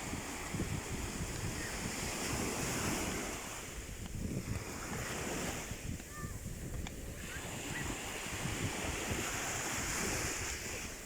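Sea waves washing onto the shore, a steady surf that swells and eases a few times, with wind rumbling on the microphone.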